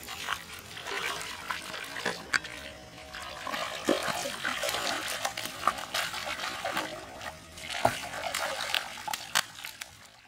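A hooked fish thrashing at the surface on a fishing line: water splashing and sloshing in irregular bursts, with many short sharp splashes.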